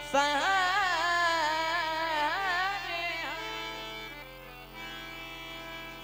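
A boy's high singing voice in a wordless, wavering alaap for about three seconds, over steady held organ notes that carry on after the voice drops away.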